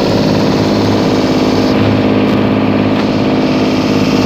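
Engine of a bangka outrigger boat running steadily at an even speed, heard from on board.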